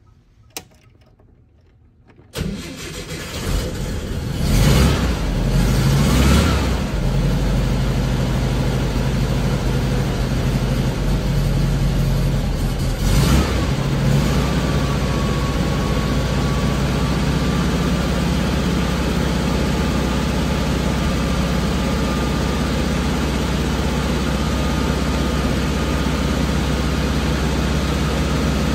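1954 Volkswagen Beetle's air-cooled flat-four engine on a cold start, heard from inside the cabin: a single click, then about two seconds in the engine starts, revs up and down a couple of times and settles to a steady idle, with one more brief rev in the middle.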